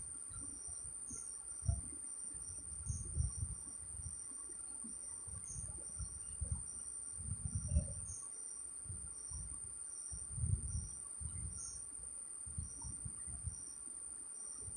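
Faint cricket chirping: a short high chirp repeating every half second to a second over a steady high whine, with soft irregular low thumps underneath.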